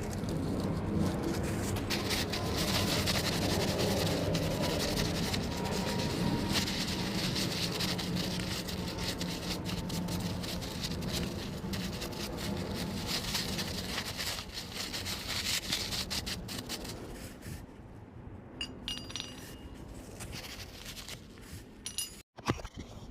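Hand work on metal scooter drive parts: continuous rubbing and scraping peppered with small metallic clinks, thinning out about three-quarters of the way through to a few separate clinks.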